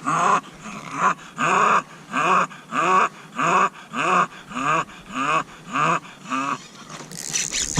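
Bulldog whining in a steady series of short, pitched cries, about one and a half a second, which stop near the end.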